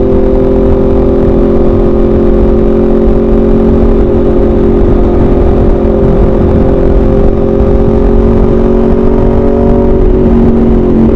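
Aprilia RSV4 RF's V4 engine through an SC-Project CRT exhaust, heard from onboard at a steady cruising engine speed, its pitch shifting slightly about ten seconds in. Wind rumbles heavily on the microphone underneath.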